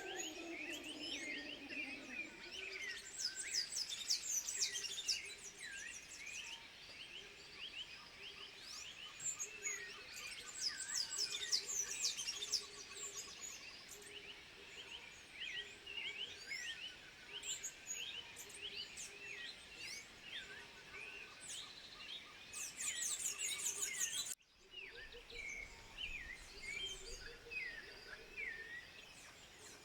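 Chorus of many overlapping high chirping and twittering animal calls, with a low gliding call at the very start and a brief cut in the sound about 24 seconds in.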